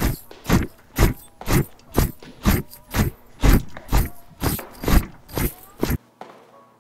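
Footsteps walking on a concrete bunker floor at a steady pace of about two steps a second, stopping about six seconds in.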